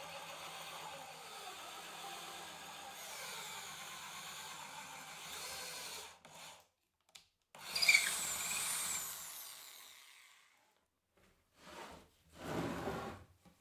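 Bosch GBM 10 RE corded drill running in a guided drill jig, its bit boring into plywood; it stops about six seconds in, then runs again for a few seconds with its motor whine rising and falling. Near the end, two short scraping sounds of the plywood panel being shifted on the bench.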